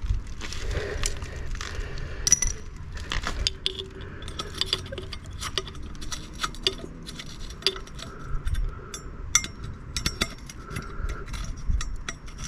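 Ratchet and socket on exhaust-stud nuts, run on only loosely: a string of small, irregular metallic clicks and clinks.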